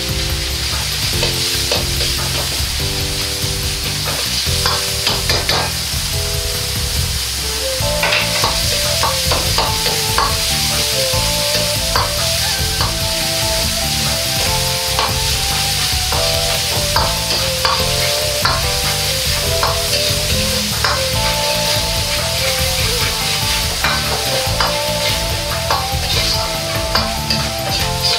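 Ground pork sizzling and frying in a hot iron wok, with a metal ladle scraping and knocking against the wok as the meat is stirred and broken up.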